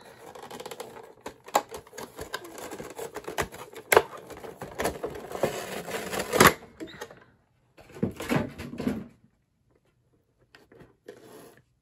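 Thin clear plastic blister tray crackling and clicking as it is handled and flexed to pop the miniature models out. Dense crackling with sharp clicks stops suddenly about six and a half seconds in, followed by a shorter burst of crackling around eight seconds.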